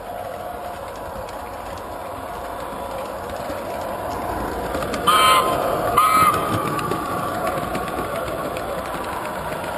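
Model train running along its track with a steady rolling rumble that grows slightly louder, and two short blasts of its horn about five and six seconds in.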